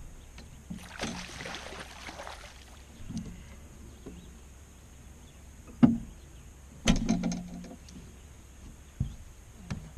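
Scattered knocks and clunks on a fishing boat, a few single ones and a short cluster, with a brief hiss about a second in.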